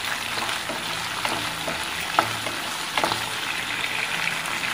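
Garlic cloves, dried red chillies and curry leaves sizzling in hot oil in a non-stick wok: a tempering (tadka) being fried, with the spatula scraping and tapping against the pan several times as it is stirred.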